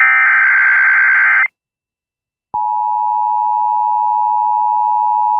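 Emergency Alert System alert: a burst of digital SAME header data tones lasting about a second and a half, a second of silence, then the steady EAS attention tone starting about two and a half seconds in.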